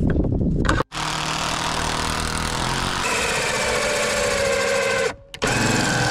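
Drill with a hole saw cutting through the plastic back of a Zappi EV charger's casing, the motor running at a steady speed. It stops briefly about five seconds in and then starts again. Before the cut, about the first second holds a short clatter of knocks.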